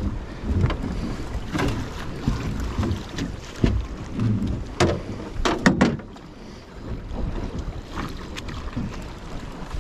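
Wind buffeting the microphone on a drift boat, over water slapping against the hull. Several sharp knocks from inside the boat, the loudest a quick cluster about five and a half seconds in.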